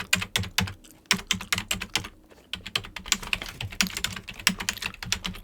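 Fast, irregular typing on a computer keyboard, a close-miked run of key clicks with a brief pause about two seconds in.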